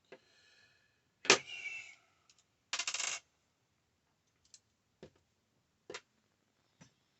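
Small metal tools and parts handled on a hard work surface during reassembly of an iPhone SE: a sharp metallic clink with a brief ring about a second in, a short rattle a moment later, then a few light clicks.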